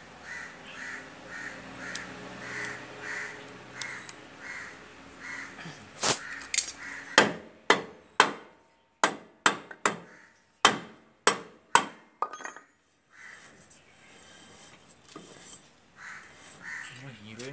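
A rapid series of about fifteen sharp blows on a wooden block held against a Bajaj three-wheeler's steel brake drum, to work the drum on or off the hub. The blows fall between about six and twelve seconds in. Before and after them, crows caw repeatedly about twice a second.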